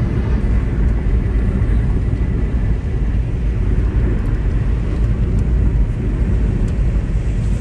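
Steady low rumble and road noise of a moving vehicle while travelling.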